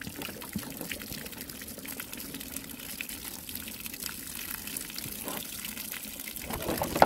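Water pouring steadily out of a plastic gallon water jug, louder briefly near the end.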